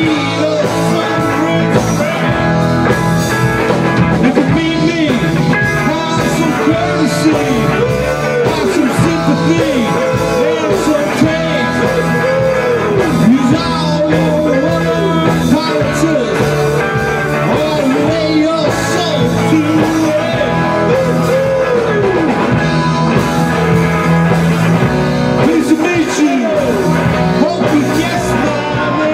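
Rock band playing a blues-rock song: electric guitars with bending lead lines, bass and a drum kit with cymbals, and a man singing.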